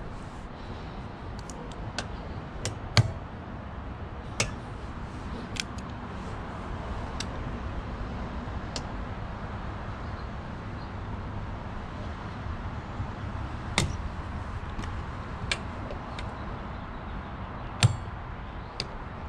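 Irregular sharp clicks and knocks of weather-strip retaining clips being pried out of a 1977–79 Chevrolet Caprice rear door, the sharpest about three seconds in and near the end, over a steady background hiss.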